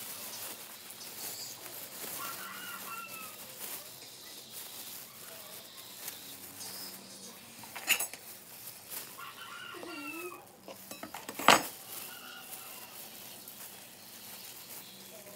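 Chickens clucking in short, bending calls, with two sharp knocks, the louder one about eleven and a half seconds in.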